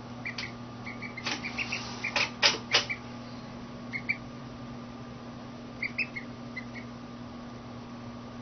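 Duckling peeping: short, high chirps in twos and threes, bunched in the first three seconds and again around four and six seconds in, over a steady low hum. A few sharp knocks in the first three seconds are the loudest sounds.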